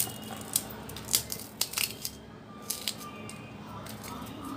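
Crisp deep-fried rice murukku (chawal ke badiya) being snapped and crumbled by hand over a plate: a string of short dry crackles and snaps, most in the first two seconds.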